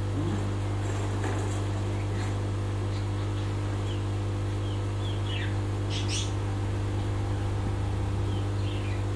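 A steady low electrical-sounding hum, with a few faint, brief high chirps and squeaks scattered over it.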